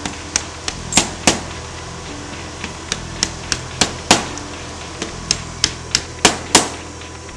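Mallet tapping steel rule knife blades down into the slots of a plywood die board. About seventeen sharp strikes come in irregular runs, with a short pause after the first few, and the heaviest blows fall near the start, the middle and the end.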